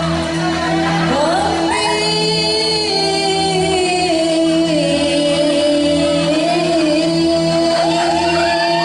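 Samroh singing: a voice glides up and holds a long high note over steady sustained accompaniment.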